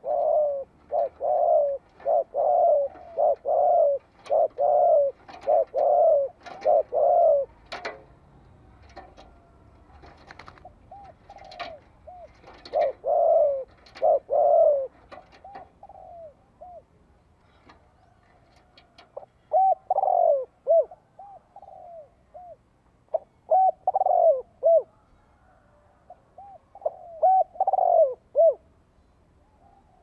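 Spotted dove calling, the decoy call used to rouse wild doves. It gives runs of short coos with brief pauses between the runs, and some sharp clicks are mixed in.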